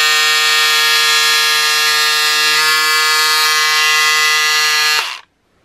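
Pink Power electric cordless scissors running steadily as they cut through one layer of cotton broadcloth: a loud, buzzy motor whine with a hiss over it. It shifts slightly about halfway through and cuts off suddenly near the end.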